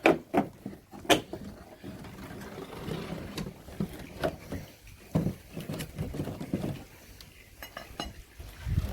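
Scattered knocks and clicks of a wooden shed being dismantled by hand, with panels and tools being handled.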